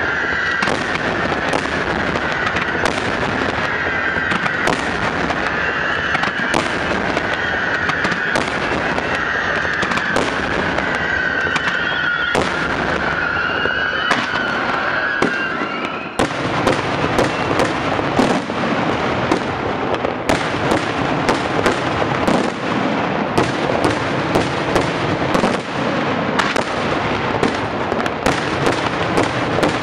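Daytime fireworks barrage: a dense, rapid run of bangs and crackling, with a wavering high whistle over the first half. About halfway through it breaks off for a moment, then goes on as louder, sharper bangs in quick succession.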